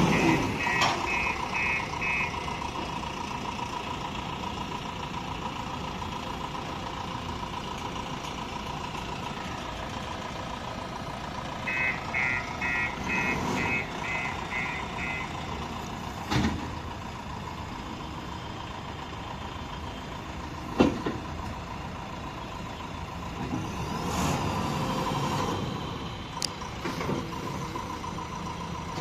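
JCB backhoe loader's reversing alarm beeping, about two to three beeps a second, at the start and again for a few seconds about twelve seconds in, over its engine running steadily. Two sharp metallic knocks stand out later on.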